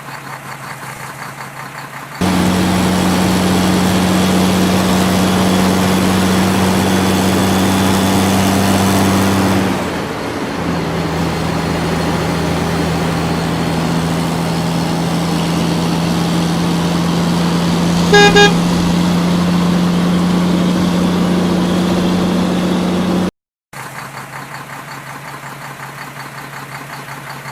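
The heavy diesel engine of a truck or earthmoving machine runs steadily, louder from about two seconds in. About two-thirds of the way through a horn gives a brief toot.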